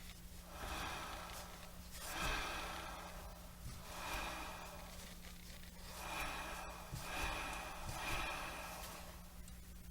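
Rear wheel of a Suzuki Address V125 scooter being turned by hand, giving a gritty rumbling noise that swells and fades about six times, one every second or two. It is an abnormal noise from the rear of the scooter.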